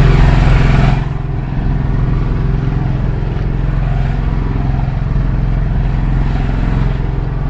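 A small engine running steadily at an even speed, a low drone. A brighter hissing noise over it stops about a second in.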